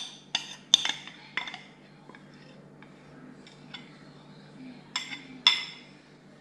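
Metal spoon clinking against a drinking glass: a quick run of ringing clinks in the first second and a half, a few light taps, then two more clinks about five seconds in.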